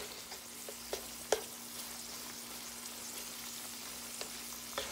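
Ground beef sizzling in a nonstick frying pan while a spatula chops and scrapes it apart, with a few sharp taps of the spatula on the pan, the loudest about a second and a half in.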